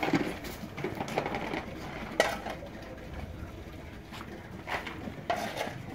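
A tethered goat's hooves knocking and scuffing on a concrete floor as it moves around its post and rears up, with a few sharp knocks spread over a low rumble.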